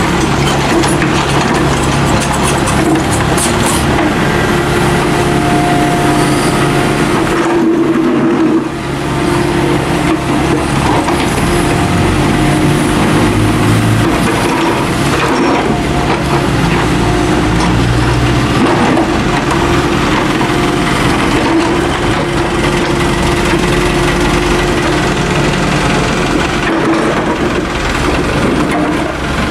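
Volvo compact excavator's diesel engine running steadily under work, with knocks and scrapes of the steel bucket in rubble-filled soil a few seconds in.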